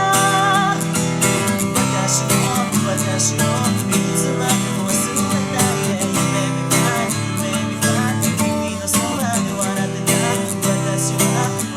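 Acoustic guitar strummed in chords, with a voice singing along at times, holding a wavering note at the start.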